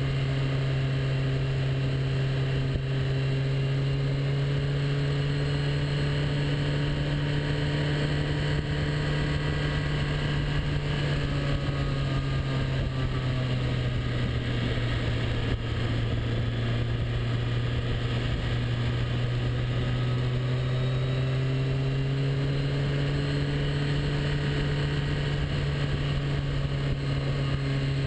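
Motorcycle engine running at a steady cruise, its note sagging slightly in the middle and rising again, over wind and road noise.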